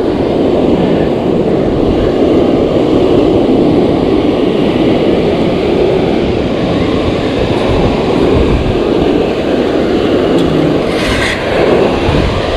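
Steady rush of ocean surf breaking and washing up the beach, mixed with wind buffeting the microphone.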